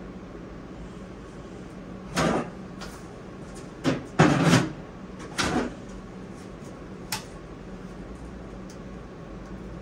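A few short clunks and rattles of a metal paint can being pulled from a low shelf and handled, loudest around the middle, over a steady low hum.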